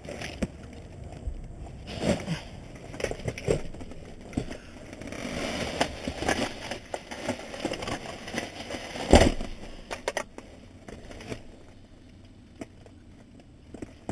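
Rummaging through trash inside a dumpster: plastic garbage bags and packaging rustling and crinkling, items knocking and scraping, with one loud thump about nine seconds in.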